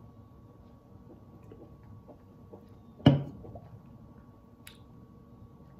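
Faint swallowing from a drink can, then a single sharp knock about three seconds in, the aluminium can set down on a table.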